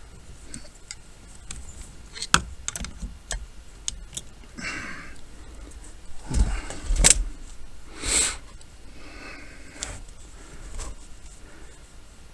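Scattered clicks, taps and rattles of small plastic and metal parts being worked on a truck's steering column as a clip is pried off the multi-function switch, with a cluster of louder knocks about six to seven seconds in.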